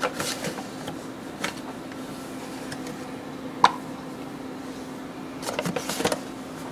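Plastic measuring cup scooping flour from a paper bag and tipping it into a plastic container: scattered light knocks and rustles, a sharper click about three and a half seconds in, and a quick run of taps near the end, over a steady low hum.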